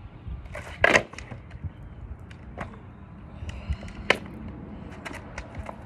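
Skateboard pop shove-it attempts on asphalt: a loud clatter of board impacts about a second in, a single pop in the middle, and a sharp smack about four seconds in as the board comes down under the rider, followed by a few lighter clacks.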